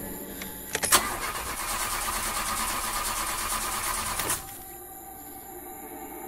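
Car engine starting: a few sharp clicks, then about three seconds of loud engine noise that cuts off suddenly, leaving a fainter steady drone.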